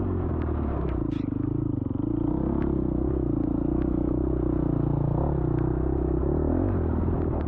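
Off-road dirt bike engine running under throttle, its pitch rising and falling as the throttle is worked, easing off briefly about a second in before picking back up. Scattered clicks and knocks from the bike clattering over rough, wet trail.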